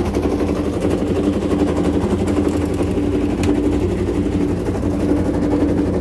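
LG TurboWonder 6.0 kg top-load washing machine spinning fast in its spin cycle: a steady hum with rapid, even knocking. The load is unbalanced and the tub is knocking about as it spins.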